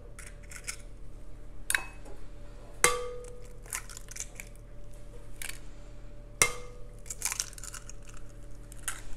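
Eggs cracked one after another on the rim of a glass mixing bowl: three sharp taps, two of them leaving the bowl ringing briefly. Between the taps the shells crackle as they are pulled open.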